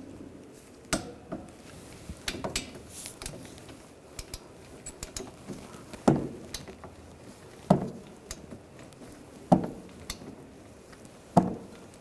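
Hand tools working on a car's rear brake caliper: a series of sharp metallic clicks and knocks, with four louder ones about two seconds apart in the second half.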